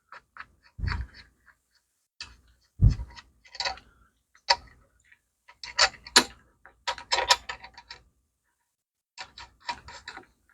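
Irregular clicks, knocks and clinks of hard objects being handled, in short clusters with gaps between, including a few dull thumps in the first three seconds.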